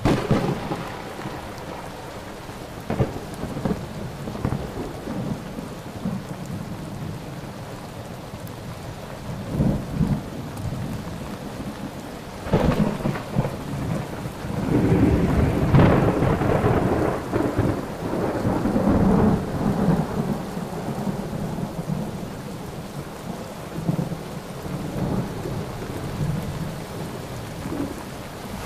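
Thunderstorm: rolling thunder over a steady hiss of rain. A sudden loud crack comes right at the start, more claps follow a few seconds in and about ten seconds in, and the longest, heaviest rumble falls in the middle.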